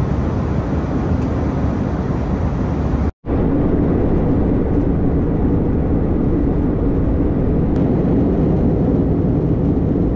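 Steady cabin noise of an Airbus A321 in flight, a rushing of engines and airflow heavy in the low end. It drops out for a split second about three seconds in, then carries on with a steady low hum.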